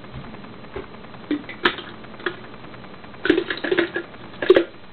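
Scattered light clicks and knocks of things being handled at a kitchen sink, with a quick cluster of them about three seconds in and another near the end.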